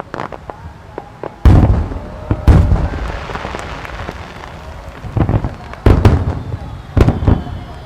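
Starmine fireworks barrage: aerial shells bursting with about four heavy booms, and smaller cracks and pops between them.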